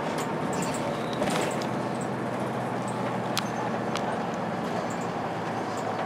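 Cabin sound of a 2002 Blue Bird CS transit bus under way: its Cummins ISC diesel engine runs steadily under a haze of road noise, with a few sharp rattles and clicks from the bus interior.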